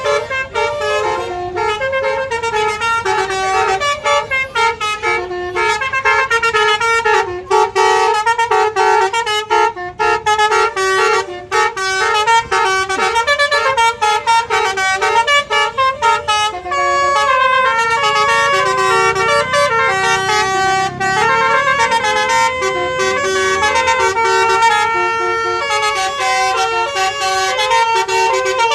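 Tour buses' telolet basuri musical horns playing melodies, several horns at once and overlapping in a horn battle, each tune stepping from note to note.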